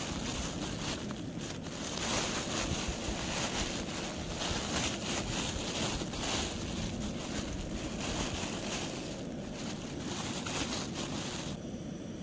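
Wind rushing over the microphone in surges over a steady low rumble, the riding noise of a motorcycle on the move. The high hiss drops away suddenly near the end.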